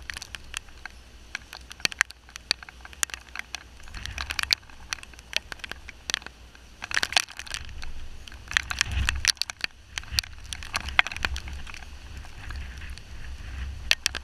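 Tropical-storm rain striking the GoPro camera as irregular sharp taps, over wind buffeting the microphone with a low rumble that swells in several gusts, each bringing a wash of rain hiss.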